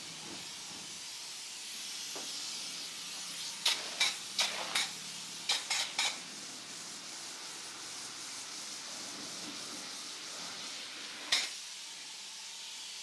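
Spray foam insulation gun hissing steadily as foam is sprayed into wall stud bays, with a handful of sharp clicks: a quick cluster between about four and six seconds in and one more near the end.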